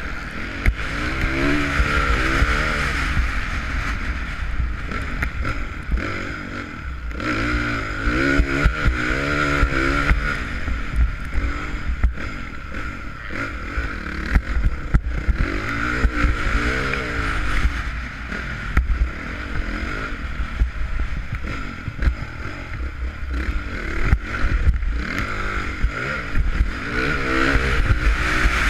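Honda CRF450 motocross bike's single-cylinder four-stroke engine being ridden hard, revving up and backing off again and again through the track's sections, heard from a camera mounted on the rider. A constant low rumble of wind runs underneath, with occasional sharp knocks from the bike.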